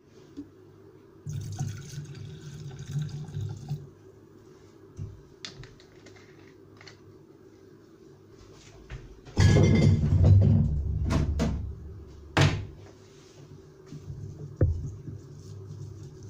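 Liquid being poured into a glass pickling jar of chillies: a softer pour early on, then a louder pour of a second or two about nine seconds in, followed by a few sharp knocks.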